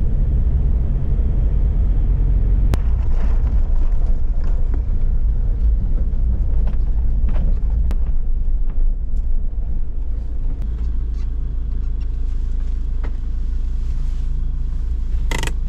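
A Land Rover engine running with a deep, steady rumble, with a few light clicks over it.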